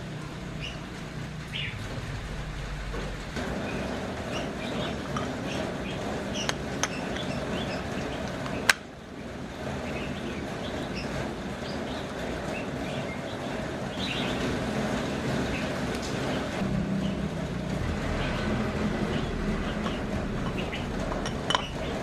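Small clicks and clinks of a table-fan motor's metal parts being handled and fitted into the motor housing, with one sharp click about nine seconds in, over steady background noise.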